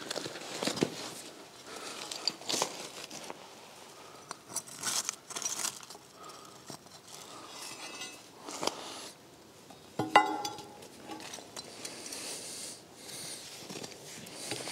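Steel pry bar scraping and knocking against a heavy concrete floor slab as the slab is levered up, with scattered clinks; one sharp metallic clink with a brief ring about ten seconds in.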